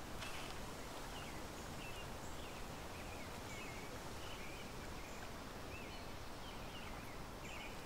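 Quiet lakeside ambience: a steady soft hiss of background noise with small high bird chirps about once a second.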